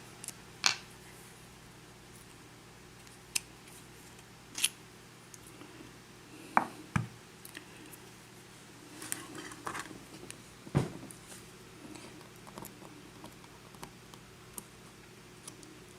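Scattered small metallic clicks and taps of a pin-tumbler lock cylinder and lock picks being handled and worked, with a few louder knocks about 6.5 s and 11 s in.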